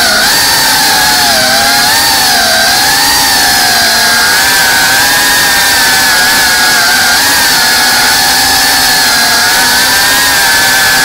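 FPV quadcopter's brushless motors and propellers whining steadily, the pitch wavering up and down as the throttle changes.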